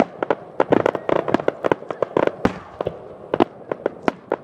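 Aerial firework shells bursting in a rapid barrage, a dense run of sharp bangs and crackles coming several a second in uneven clusters.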